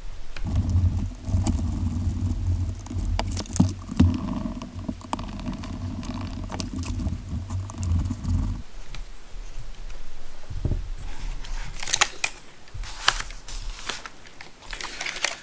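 A steady low hum that cuts off suddenly about eight and a half seconds in, with scattered light clicks of small RC car suspension parts being handled and fitted together. Denser clicks and rattles of the parts come near the end.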